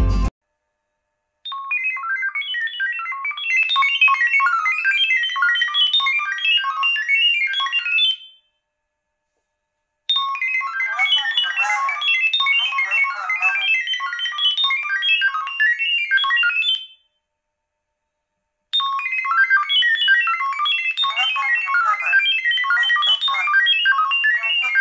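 Smartphone speaker playing a sound-wave Wi-Fi pairing signal for a security camera: rapid strings of short beeping tones that jump about in pitch. It comes in three bursts of about seven seconds each, with short silent gaps between them, as the Wi-Fi credentials are sent to the camera by sound.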